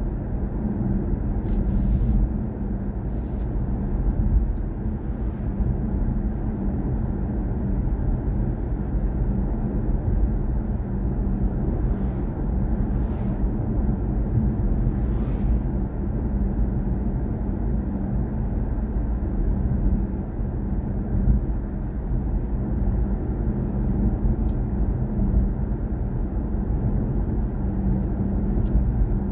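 Steady low road and tyre rumble inside the cabin of a BMW i4 M50, a fully electric car, cruising at a constant speed.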